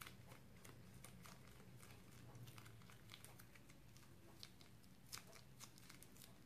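Faint crinkling of a small plastic bag and sticky squishing of slime as the bag is squeezed out by hand, heard as a scatter of soft clicks and crackles over a low steady hum.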